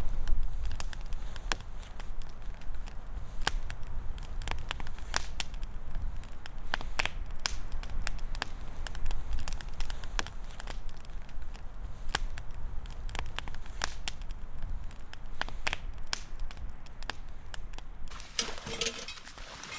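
Wood fire crackling, with many irregular sharp pops over a steady low rumble.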